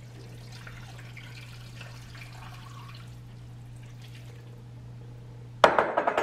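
Water poured from a glass pitcher into an Instant Pot's stainless steel inner pot full of frozen chicken bones: a soft trickle and splash that tapers off after a few seconds. Near the end comes a sudden loud clack followed by a brief clatter.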